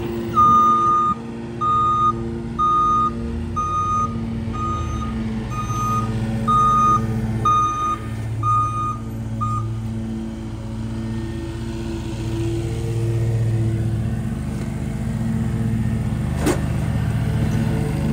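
Backup alarm of a small Ford split-body garbage truck beeping about once a second as it reverses, about ten beeps, then stopping. The truck's engine runs underneath and keeps idling afterwards, with a sharp click near the end.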